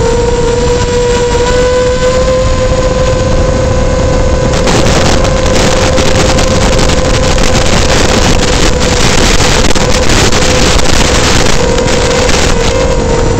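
Flywoo Explorer LR FPV quadcopter's motors and propellers whining at a steady pitch in fast forward flight. A rushing hiss of wind noise grows louder about four and a half seconds in, and the motor pitch wavers near the end.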